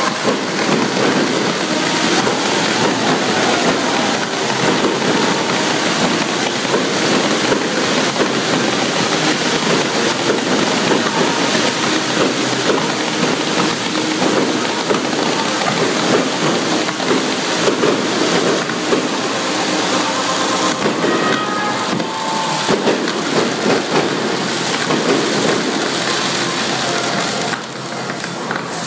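Stadium fireworks: ground fountains and crackling pyrotechnics hissing and crackling densely and without a break, like heavy rain, easing slightly near the end.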